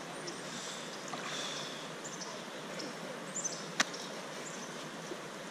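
Steady rush of creek water flowing around the wading angler, with one sharp click a little under four seconds in.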